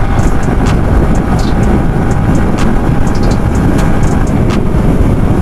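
Riding noise on a Yamaha R15 V3 sport bike: wind rushing over a helmet-mounted microphone, with the 155 cc single-cylinder engine running at a steady cruise underneath. The noise is steady, with a few faint high ticks scattered through it.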